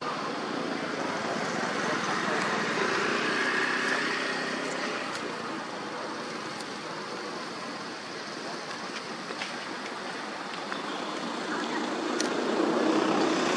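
Steady outdoor background noise: an even hiss over a low rumble, with a few faint clicks.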